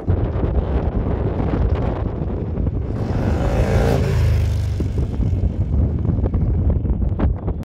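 V-twin touring motorcycle riding past, a deep pulsing engine rumble whose pitch drops as it goes by about four seconds in.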